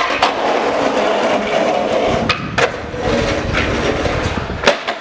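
Skateboard wheels rolling on concrete, with several sharp clacks of the board striking the ground or ledge, the loudest near the end.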